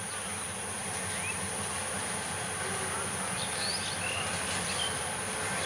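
Diesel-electric locomotive approaching, its engine a low steady rumble growing slowly louder. Birds chirp a few times over it, against a steady high insect buzz.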